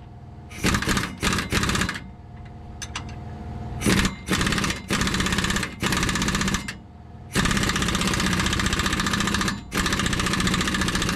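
Pneumatic impact wrench hammering on a rusty shock-absorber mounting nut with damaged threads. It goes in short bursts at first, then runs for several seconds almost without a break near the end as the nut works free.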